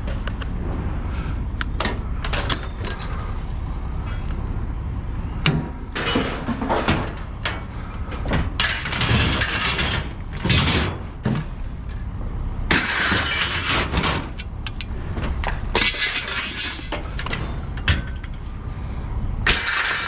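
Scrap being thrown onto a scrapyard pile: repeated irregular crashes and clatters, with glass breaking, over a steady low vehicle rumble. The crashes start about five seconds in and come in surges to the end.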